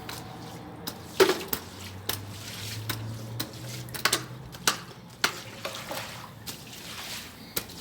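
Water from a garden hose spraying and splashing on the ground, with about ten sharp irregular knocks and splashes over it.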